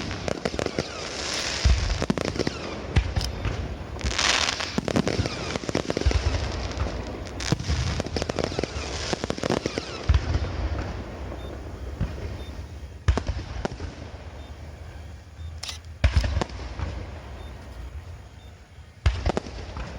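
Aerial fireworks bursting: rapid shell bursts and crackling, dense for the first half, then thinning to single loud bangs about 13, 16 and 19 seconds in.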